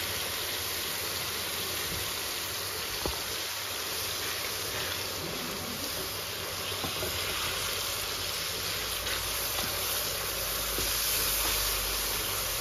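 Spiced onion, garlic and ginger masala sizzling steadily in hot oil in a pan over a full flame, with small splashes of water being added to it as it fries. The sizzle grows a little fuller and louder near the end.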